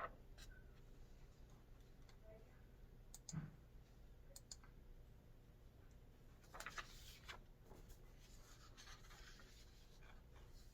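Near silence with faint scratching and a few soft clicks of a child colouring on paper.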